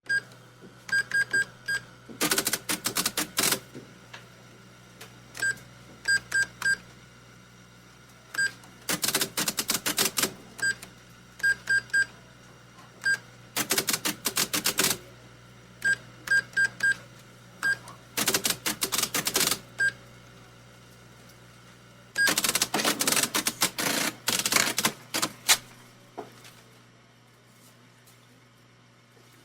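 Supermarket checkout sounds: a barcode scanner gives short high beeps, singly and in quick runs of two or three. Between them come several bursts of rapid mechanical clatter from the till, each lasting a second or more.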